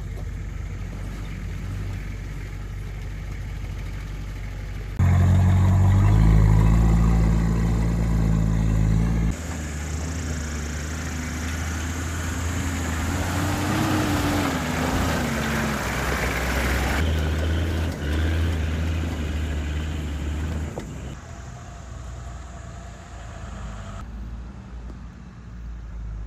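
Off-road 4x4 vehicle engines running in several spliced clips that change abruptly, the loudest stretch about five to nine seconds in; around the middle the engine note rises and falls as it is revved.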